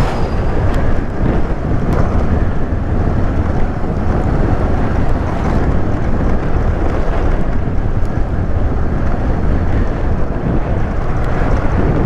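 Loud, steady rush of wind buffeting the microphone of a rider on a moving motorcycle, with road noise underneath.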